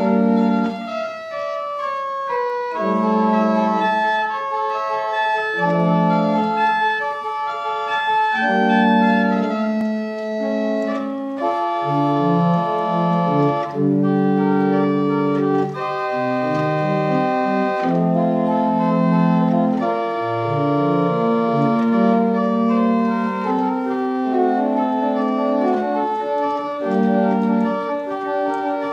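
Church pipe organ playing the closing voluntary: sustained chords that change every second or so over a moving bass.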